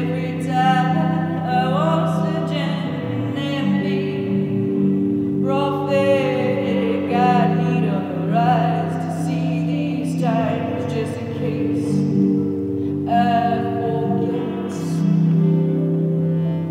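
A woman singing long phrases with a wavering vibrato over sustained chords from a hand-pumped harmonium. The chords change every second or two.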